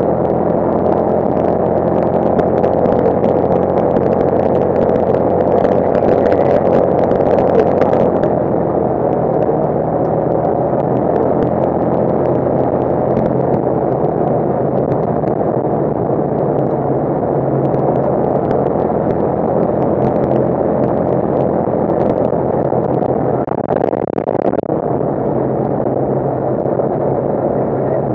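Side-by-side UTV driving on a gravel road, heard from inside the cab: a steady engine drone under tyre and gravel noise. Scattered sharp clicks and rattles come through, most often in the first third.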